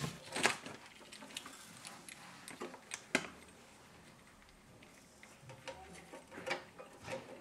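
Scattered light clicks and taps of small parts being handled: an aluminium headlight insert and its reflector being fitted together by hand. The sharpest clicks come about half a second, three seconds and six and a half seconds in.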